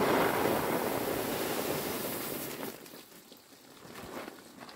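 Dried pieces sliding off a woven bamboo tray into a plastic sack: a loud, grainy rushing that dies down after nearly three seconds.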